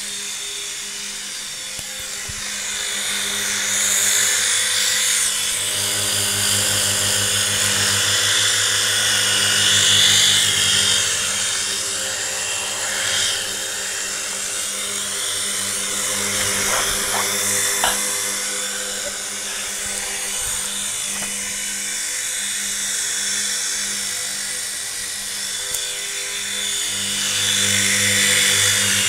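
Syma S026G toy Chinook RC helicopter's small electric motors and twin rotors whining, swelling and easing in loudness several times.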